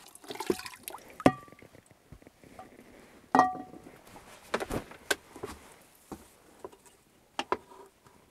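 Metal cookware being handled: a handful of knocks, two of them with a short metallic ring. The loudest, about three and a half seconds in, comes as a frying pan is set down on the logs, and lighter scattered knocks follow.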